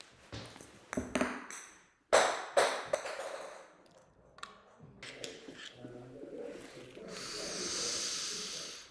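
Short ringing pings, several in quick succession, then softer scattered noises and a hiss that swells and fades near the end.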